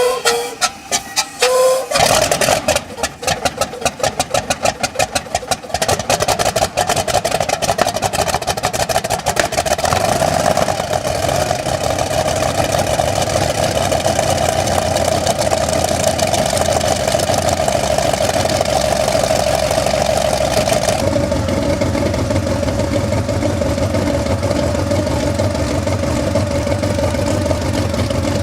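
Helicopter engine starting. About two seconds in it catches with a rapid run of firing strokes. It then settles into a steady, loud running tone with a low rumble underneath.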